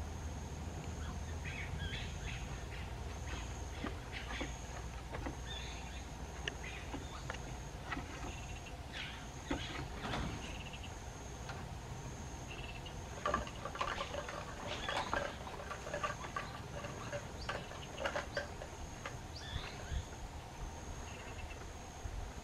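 A steady high-pitched insect trill that pulses evenly, with scattered short clicks and rustles that are busiest a little past halfway.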